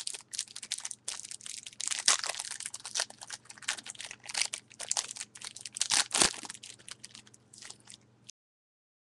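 Wrapper of a trading-card pack crinkling and crackling as it is handled and torn open by hand, in a dense run of irregular crackles that cuts off suddenly about eight seconds in.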